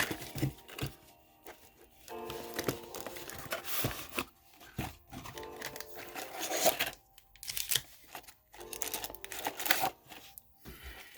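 Plastic wrapping on a Pokémon card Elite Trainer box being torn and crinkled in irregular bursts, over soft background music.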